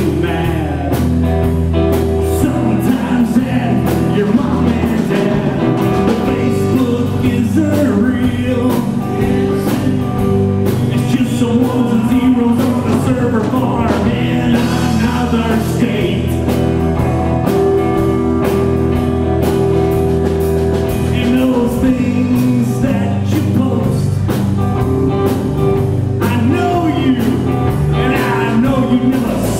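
A rock band playing live: electric guitar, electric bass guitar and drum kit, with a bending lead line over a steady beat.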